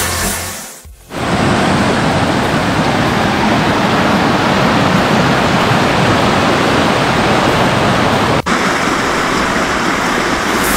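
Creek water rushing over rocks in small rapids, running high after heavy rain: a steady, full rushing noise, with a brief break about eight seconds in. Music fades out in the first second.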